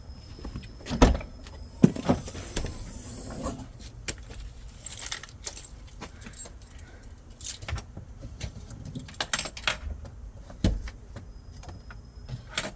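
Metallic jingling and clinking with scattered knocks and thumps as parts are handled in a car's trunk while it is being taken apart. The loudest thumps come about one and two seconds in.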